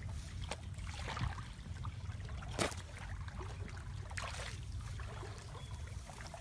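Shallow water sloshing and splashing as people wade and grope by hand along a grassy channel bank, with short sharp splashes and rustles, the strongest about two and a half seconds in, over a steady low rumble.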